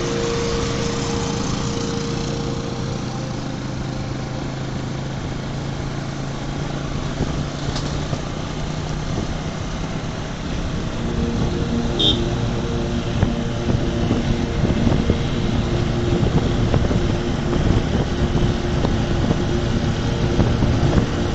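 Motorcycle engine running steadily at road speed under a dense rush of wind and road noise, heard from the pillion seat; the engine note changes and grows louder about halfway through.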